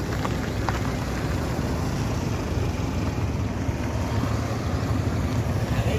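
Honda Amaze car driving slowly on an asphalt road: a steady low engine and tyre rumble, with a couple of faint clicks about half a second in.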